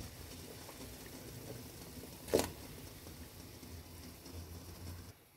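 Water boiling in a stainless-steel pot, a steady bubbling hiss, with one sharp knock a little over two seconds in. The sound drops away just before the end.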